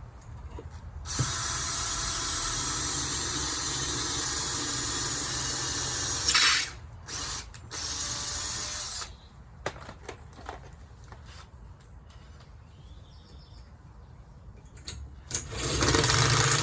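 A power tool running in bursts: one long run of about five seconds, two short runs, then another run near the end.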